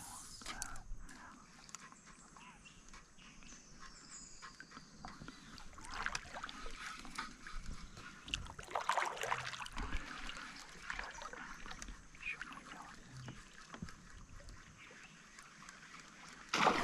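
Kayak paddle strokes dipping into and pulling through river water, with uneven splashes and drips that swell and fade.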